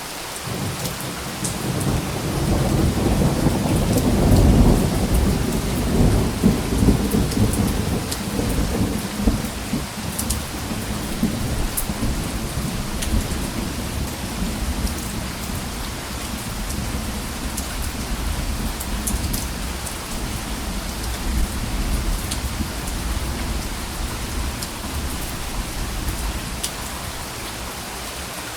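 Steady rain falling, with scattered drops ticking, and a soft roll of thunder that swells in the first seconds, is loudest about five seconds in and fades out by about ten seconds in.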